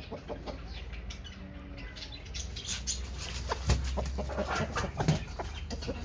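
Aseel chickens stirring on straw bedding: a run of rustles and wing flutters that gets busier and louder in the second half, with a few soft clucks.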